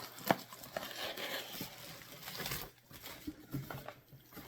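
Rustling and handling of a candle's packaging, with a sharp click just after the start; the rustling thins out and grows quieter over the last couple of seconds.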